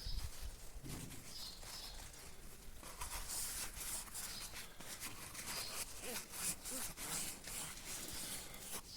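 Emery tape rubbing by hand inside the bore of a Valtra 6750 tractor's brake slave cylinder, a fast run of short scratchy strokes, polishing off a build-up on the bore before the new piston and seal go in.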